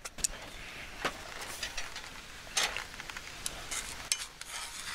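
Sliced garlic and dried red chili sizzling gently in oil in a cast-iron skillet, with scattered small pops and crackles, while chopsticks stir them: the first step of a garlic-and-chili pasta sauce.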